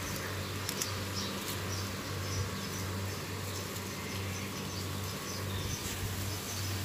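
Faint, high-pitched chirping of small birds repeating over a steady low hum. A few sharp snaps near the start as bitter gourd leaves are picked by hand.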